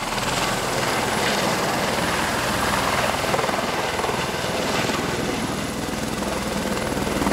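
A tour helicopter with a ducted tail fan comes in low and sets down close by on the pad, its engine and rotor running loud and steady.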